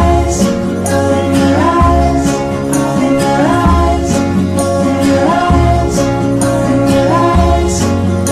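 Guitar-led song with bass and a regular beat; a short rising phrase recurs about every second and a half.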